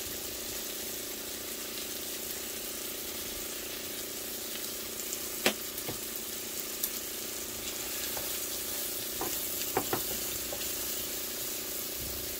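Sliced white mushrooms sizzling as they sauté in butter in a nonstick frying pan: a steady frying hiss. A few sharp clicks cut through it, the loudest about five and a half seconds in and a small cluster near the end.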